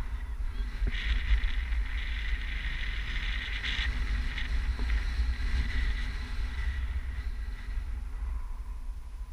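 Wind rushing over the camera microphone in tandem paraglider flight: a steady low rumble, with a higher hiss on top from about a second in until about four seconds in.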